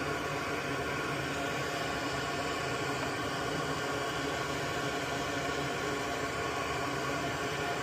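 A small electric fan or blower running steadily at an electronics repair bench, an even hiss with a hum under it and no change in level.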